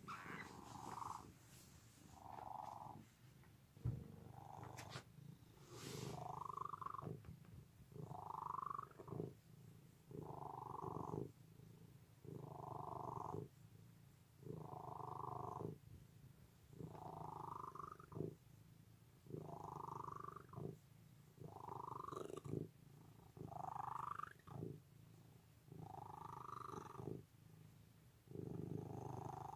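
A hairless cat purring while being stroked, the purr swelling and fading about every two seconds with its breathing. A few sharp knocks sound in the first six seconds.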